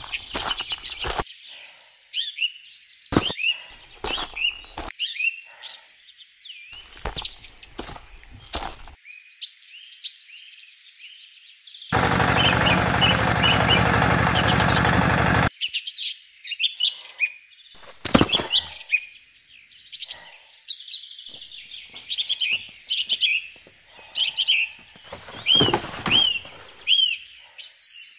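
Small birds chirping on and off, with scattered knocks and taps of toy pieces being handled. About twelve seconds in, a small electric motor, the toy tractor's, runs loudly for about three and a half seconds and then stops.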